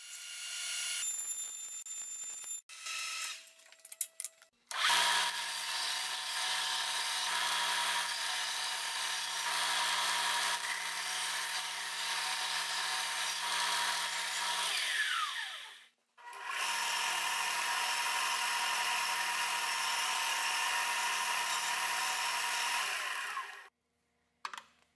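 Belt sander running steadily while a welded aluminum part is pressed against the abrasive belt, a dense grinding hiss over the motor's hum. It stops briefly just past the middle, then runs again for several more seconds before cutting off near the end.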